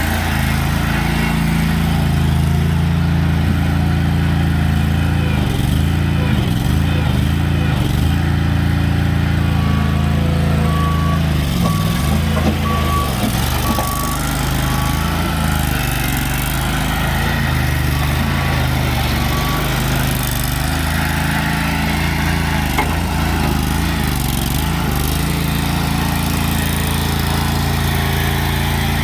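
Engine of a Lay-Mor LB-30 backhoe running steadily, its pitch dipping briefly a few times. A faint series of short, evenly spaced beeps comes in about a third of the way through and again past the middle.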